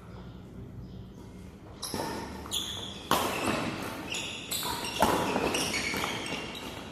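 Badminton rally: rackets striking the shuttlecock in a run of sharp, ringing hits starting about two seconds in, with shoes squeaking on the court floor.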